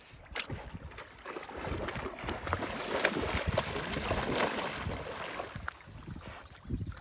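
Golden retriever splashing through shallow seawater among rocks, its legs churning the water. The splashing builds to its loudest in the middle and eases near the end.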